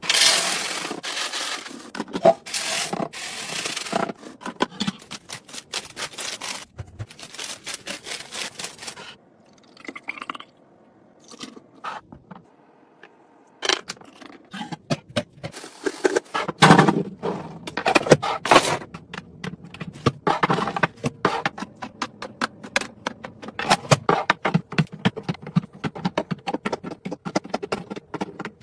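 Dry cereal pouring and rattling into a clear plastic container. After a short lull, a run of sharp clicks, taps and scrapes follows as a glass spice jar with a metal lid and plastic-capped bottles are handled and set down in plastic organiser bins.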